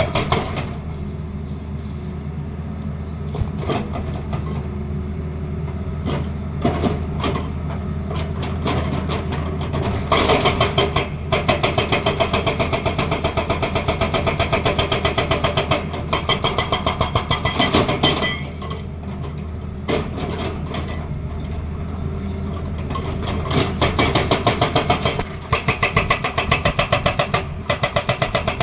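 Tata Hitachi excavator's diesel engine running steadily while its hydraulic breaker hammers in long runs of rapid blows, several a second, from about ten seconds in and again near the end.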